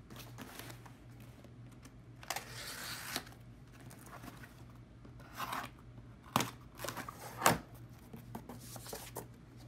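Knife blade slitting packing tape and scraping along a cardboard box in rasping bursts, followed by the cardboard flaps being pulled open with two sharp snaps in the second half.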